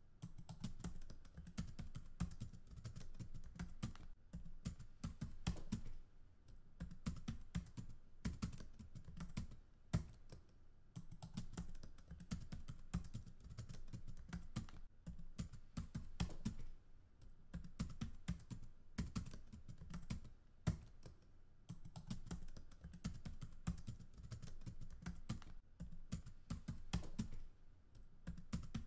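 Computer keyboard being typed on in quick, irregular runs of keystrokes, broken by short pauses.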